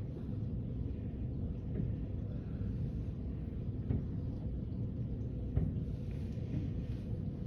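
A steady low rumble with two sharp bangs of fireworks bursting, about four and five and a half seconds in.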